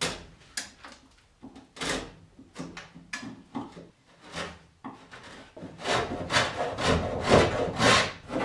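Hand tool scraping and rasping along the plywood panel edges and keel of a wooden sailboat hull, trimming them flush with the stem. A few separate strokes come first, then a quicker run of strokes from about six seconds in.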